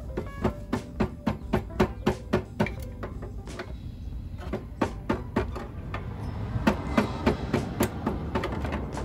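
A rubber mallet repeatedly striking a metal part held against a pocket bike's frame. There are about three sharp blows a second, with a short pause near the middle.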